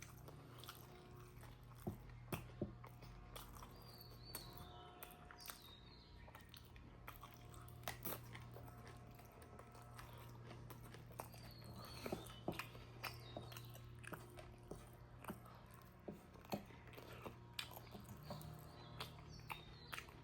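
A person chewing and biting pork close to the microphone: irregular wet mouth clicks and smacks over a steady low hum.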